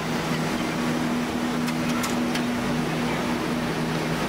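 Steady mechanical hum of a railway train standing at the platform with its machinery running, with a few faint clicks about two seconds in.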